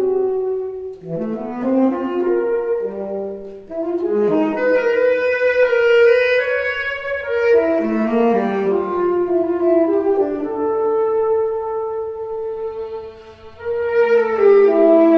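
Tenor saxophone with a small chamber ensemble of bowed strings and woodwinds, playing sustained, overlapping melodic lines in a contemporary classical concerto. Near the end the music thins out briefly, then comes back in louder.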